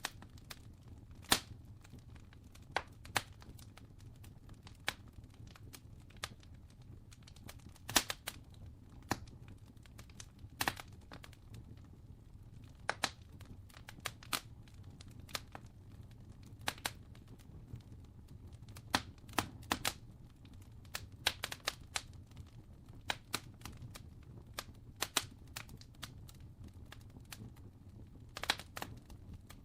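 Wood fire crackling: irregular sharp pops and snaps, a few louder cracks among them, over a steady low rumble of the flames.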